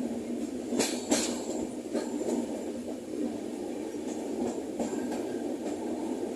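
Indian Railways train running on the rails: a steady rumble of wheels on track, with two sharp metallic clanks about a second in and lighter clicks after.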